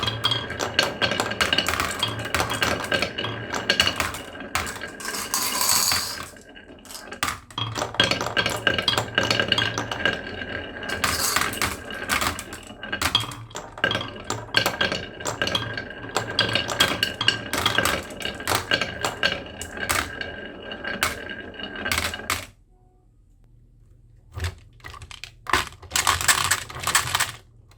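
Many marbles rolling and clattering down a marble run, a dense stream of small clicks and rattles. Near the end it drops to a brief lull, then a few scattered clicks.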